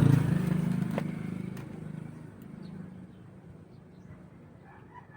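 A passing motor vehicle's engine, loudest at the start and fading away over about three seconds, with a couple of light clicks.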